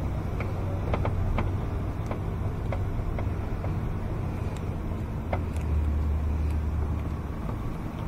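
Steady low motor-vehicle rumble that swells a little over halfway through. Over it, scattered light clicks of a hand screwdriver turning Phillips-head self-tapping screws out of a truck's door panel.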